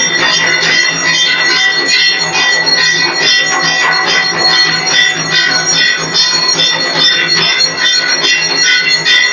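Arati bells ringing continuously, with a dense, even din of ringing metal tones and frequent sharp strikes running through it.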